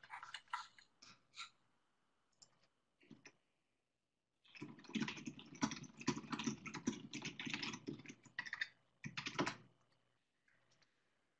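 Typing on a computer keyboard: a few scattered keystrokes in the first second and a half, then a fast, continuous run of keystrokes for about five seconds from roughly four and a half seconds in, and a couple more near the end.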